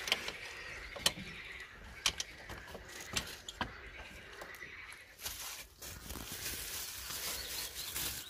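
Scattered sharp clicks and knocks as hands work among the wiring and plastic parts inside a scooter's front body, then a steady crinkly rustle of bubble wrap being handled over the last few seconds.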